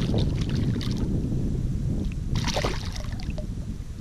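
Wind noise on the microphone, with small splashes and one louder splash about two and a half seconds in, from water churned at the surface around a topwater frog lure.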